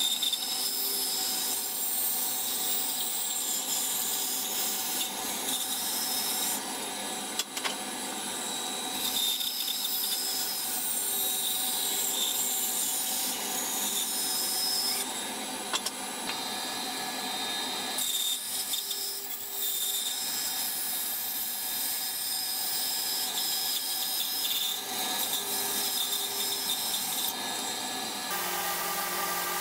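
Bandsaw running while Douglas fir blocks are fed through it freehand, the blade cutting tapered angles in the wood. The cutting noise comes and goes in several stretches over the machine's steady running sound.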